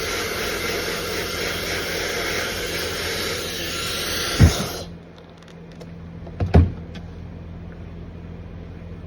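Handheld blow dryer blowing with a steady rushing hiss, switched off suddenly about five seconds in. A thump comes just before it stops, and two quick knocks follow about two seconds later.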